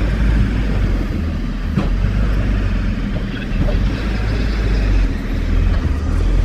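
Tractor engine running steadily, a loud low rumble, as it works at clearing compacted, frozen snow.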